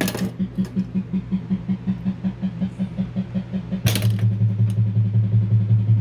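Williams High Speed pinball machine's background music: a repeating electronic bass note pulsing about five times a second, stepping down to a lower, louder note after a sharp clack near the end. The music plays on with no voice call-outs or siren effects over it, the sound fault being chased after fitting a new Rottendog MPU.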